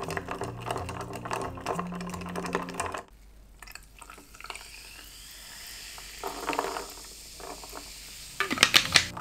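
Ice clinking against a glass as whisky is stirred over it with a bar spoon, over background music. After about three seconds the music stops and soda water is poured into the glass, a fizzing pour that rises in pitch as the glass fills, with a few sharp ice clinks near the end.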